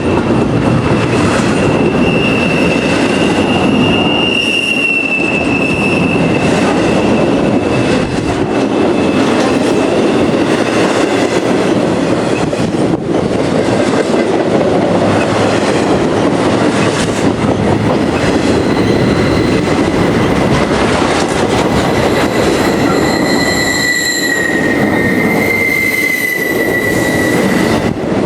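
A freight train rolling past on the rails: a continuous rumble and rattle of wheels and cars. A thin, high wheel squeal sounds during the first several seconds and again near the end.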